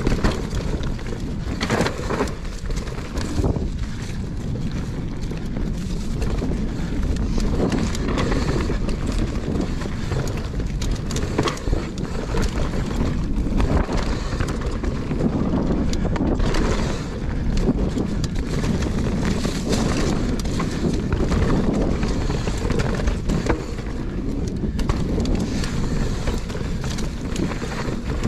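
Wind rushing over the camera microphone as a GT Force Pro mountain bike rolls fast down a dirt trail covered in dry leaves, with tyre noise and the bike knocking and rattling over bumps.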